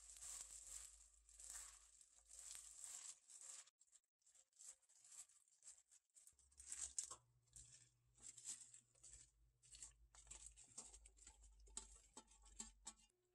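Plastic-gloved hand kneading and tossing dressed spring cabbage (bomdong) leaves in a glass bowl: repeated soft, wet rustling and crinkling strokes.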